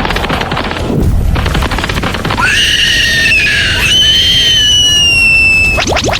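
A long, high-pitched shriek held for about three seconds, falling slightly in pitch at its end, comes after a couple of seconds of rapid crackling.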